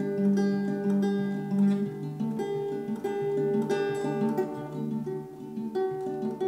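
Background music: an acoustic guitar playing picked notes that ring on.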